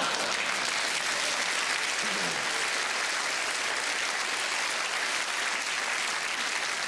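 Large theatre audience applauding, steady clapping throughout.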